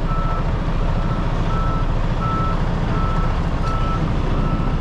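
Truck backup alarm beeping at a steady pace, about one short beep every 0.7 seconds, over the low, steady running of a diesel semi-truck engine as the rig reverses.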